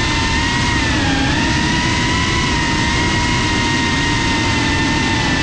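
FPV quadcopter's brushless motors and propellers whining at a steady cruise throttle, the pitch dipping slightly about a second in, heard from the onboard GoPro with a rush of prop wash and wind beneath the whine.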